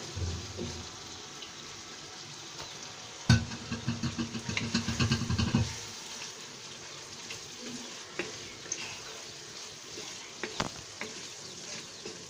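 Chicken curry sizzling in oil in a nonstick pan, its water cooked off, while a wooden spatula stirs it. There is a louder spell of quick scraping and knocking of the spatula against the pan from about three to six seconds in, then a few single taps.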